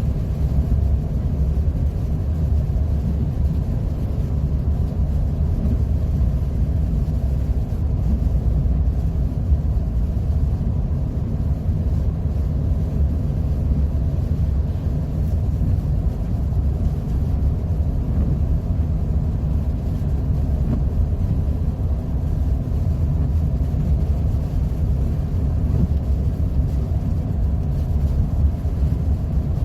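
Steady road noise inside a moving car's cabin: a low, even rumble of tyres and engine on a wet, slushy road.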